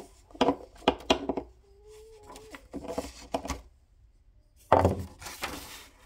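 Paper and pencil handling on a desk: a run of light knocks and taps, then, near the end, a louder thump and rustle as a sheet of paper is picked up.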